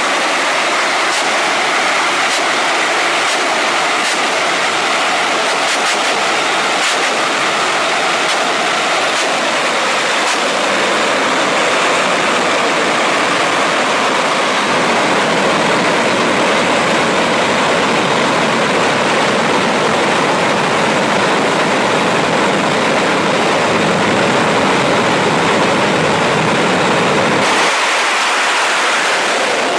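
The Shockwave jet truck's three Pratt & Whitney J34 turbojet engines running in place, a loud steady jet roar. Sharp pops come about once a second through the first ten seconds, while flames shoot from its stacks.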